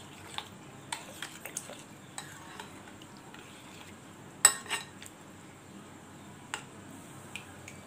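A metal spoon stirring thick yogurt raita in a ceramic plate, clinking against the plate at irregular moments. The loudest clink comes about halfway through.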